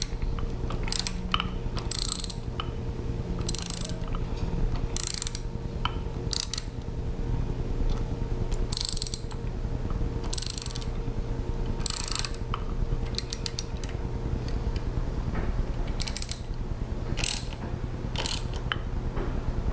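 Ratchet wrench clicking in short back-and-forth strokes, about a dozen bursts, as a bolt on the turn signal housing is run in snug but not fully tightened.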